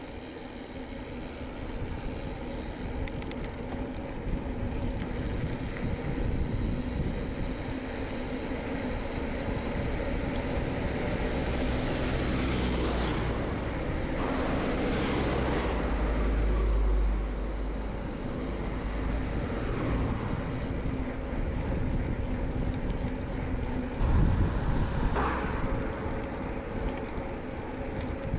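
Wind rushing over the microphone of a bicycle being ridden along a road, with several motor vehicles passing that swell up and fade, the loudest about halfway through and near the end.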